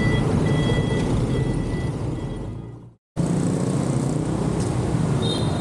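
Riding a motor scooter in city traffic: a steady wash of engine and road noise with a faint high beeping on and off. It fades out about three seconds in, and after a brief silence street traffic and running engines come back in.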